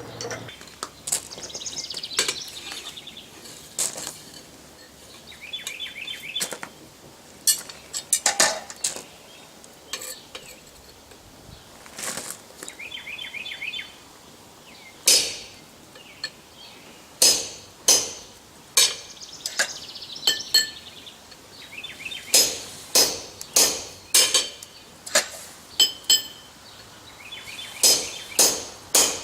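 Hand hammer striking a hole punch on hot steel over an anvil, each blow ringing metallically. The blows are scattered at first, then come steadily about once a second from about halfway through.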